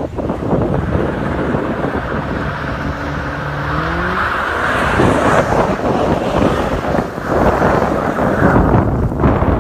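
A car engine revving, its pitch rising about three to four seconds in, then running hard as the car spins its tyres in a smoky burnout. Wind buffets the phone microphone.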